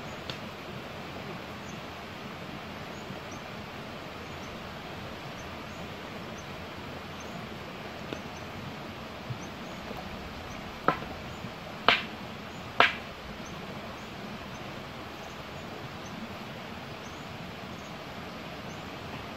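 Three sharp taps about a second apart, a wooden stick knocking on stony ground while it prods a centipede, over a steady outdoor hiss with faint high chirps.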